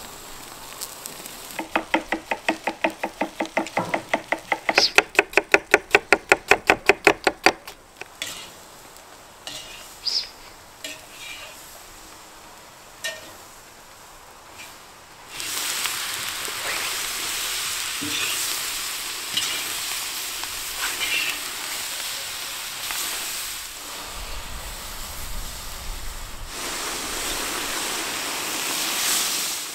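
Meat and onions being stirred in a hot cast-iron cauldron, heard as a run of quick, even scraping strokes, several a second, for about six seconds. About halfway through comes a loud, steady sizzling hiss as liquid is poured from a clay jug into the hot cauldron and flashes into steam.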